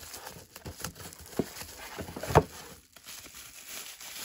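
Plastic bubble wrap crinkling and rustling as a wrapped part is pulled from a cardboard box and handled, with a few light knocks and one louder knock a little past halfway.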